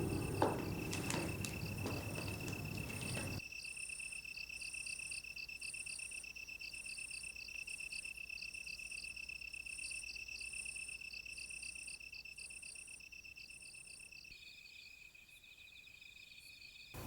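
Crickets chirping: a steady high trill with a pulsing chirp about twice a second. A low rumble with a few soft clicks runs under them for the first three seconds, then stops suddenly. Near the end the trill drops slightly in pitch and its rhythm changes.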